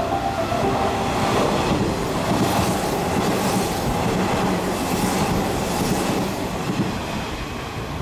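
Hanshin 8000-series electric train passing through the station at speed without stopping: a loud rush of wheel and rail noise with quick, even clatter over the rail joints, easing off near the end as the last cars go by.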